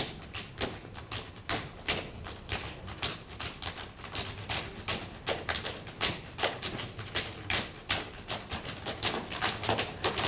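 Percussion ensemble playing a busy rhythm of sharp, quick strokes, several a second, over softer low thuds.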